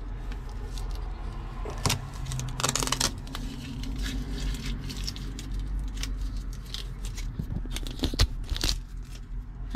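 Duct tape being peeled off a transducer and crumpled in the hand, with a longer tearing rasp about three seconds in, followed by scattered clicks and a few sharp knocks as the hardened epoxy and housing are handled.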